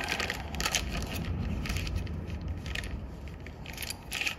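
Muffled rustling and crackling with scattered small clicks over a low rumble: handling noise close to the microphone as the camera is set down and things are moved about near it.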